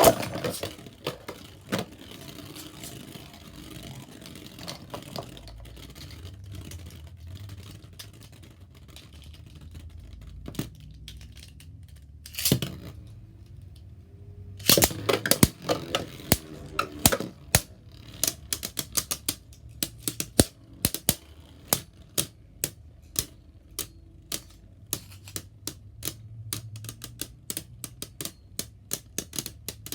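Spinning Beyblade tops clashing in a plastic stadium, making sharp plastic clicks. A few loud clashes come near the middle, then quick clicking at about two to three a second.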